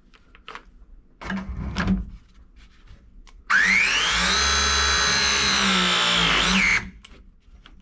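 Milwaukee M18 battery press tool running a press cycle on a copper ProPress fitting. A few short knocks of handling come first; then, about three and a half seconds in, the motor winds up in pitch, runs steadily for about three seconds with a brief rise near the end, and stops as the press completes.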